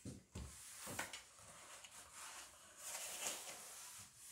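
Sailcloth rustling and crinkling as it is handled on the floor, with a few light knocks in the first second.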